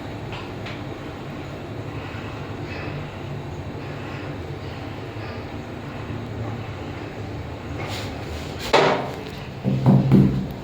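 Lift car running on its way down, a steady low hum and rumble, with a sharp knock and a brief louder low-pitched noise near the end.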